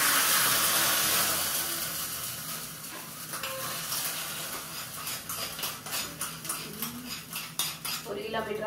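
Tempering of shallots and curry leaves fried in hot oil, poured into a pot of fish curry. It sizzles sharply at first and dies down over two or three seconds. After that, a metal spoon clinks and scrapes against the pan in quick, short knocks.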